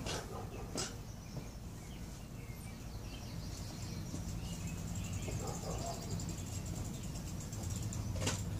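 Outdoor yard ambience: a steady low hum with faint bird chirps and a high, rapid insect-like trill in the middle, broken by a few sharp clicks near the start and one near the end.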